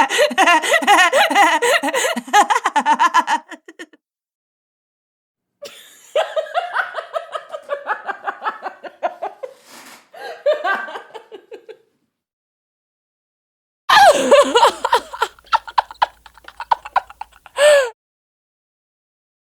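People laughing: three separate laughs, each a few seconds long, with short silences between them. The last one ends in a brief high-pitched note.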